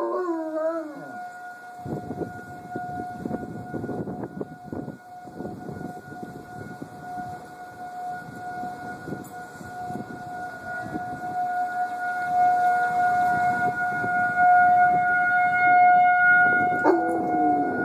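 A siren holding one steady pitch, growing louder in the second half. A young German Shepherd howls along briefly right at the start and again near the end, its howl sliding down in pitch.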